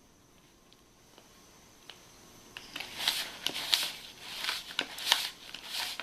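Pastry cutter worked through a crumbly mix of butter, oats, flour and sugar in a bowl, pushed down and turned: a string of gritty scraping strokes, about two a second, starting after a quiet couple of seconds.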